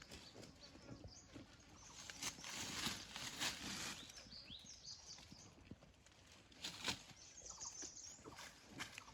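Small birds chirping in short, quick downward notes, with scattered rustling and light knocks.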